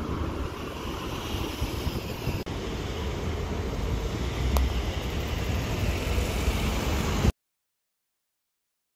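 Street traffic: a steady, noisy rumble of passing cars and road noise. It cuts off to dead silence about seven seconds in.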